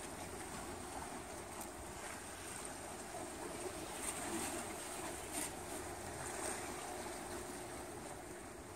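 Steady wash of the sea and wind, with a couple of faint clicks.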